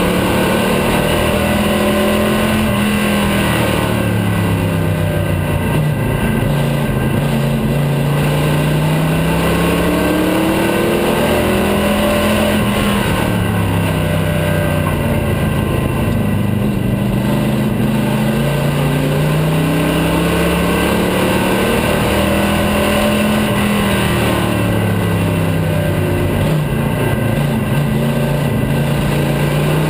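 Vintage stock car's engine heard from inside the cockpit at racing speed. It lifts off and pulls again with each lap, so its pitch falls and rises about every eleven or twelve seconds.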